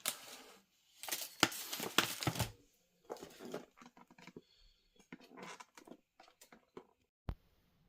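Irregular rustling, crinkling and tearing noises in scattered bursts, busiest about one to two and a half seconds in, with a single sharp click near the end.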